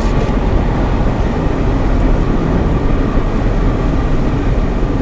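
Steady engine and road rumble of a manual car cruising, heard inside the cabin, with no revving or gear changes.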